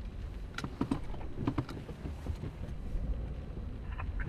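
Steady low rumble with scattered light clicks and taps, the sharpest clustered in the first two seconds.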